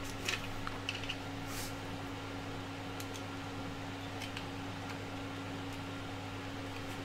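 Light clicks and taps of a 3D-printed plastic printer part and its small screws being handled, a cluster of them in the first second and a half and a couple more later, over a steady low hum.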